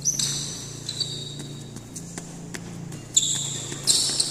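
Badminton doubles rally: sharp cracks of rackets hitting the shuttlecock, several times, with high-pitched squeaks of shoes on the court mats. A steady low hum runs underneath.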